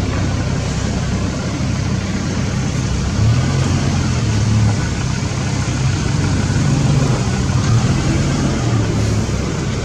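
A motor engine running steadily, a low hum that grows a little stronger about three seconds in, over a constant hiss.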